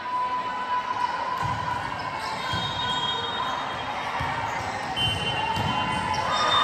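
Indoor volleyball being played: a ball thudding off hands and the court floor several times, with thin high squeaks over a murmur of voices.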